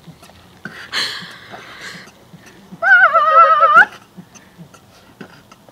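Squeezed rubber chicken giving one loud, warbling squawk about three seconds in that lasts about a second, after a breathy rush of air about a second in. A faint beatboxed beat of soft ticks runs underneath.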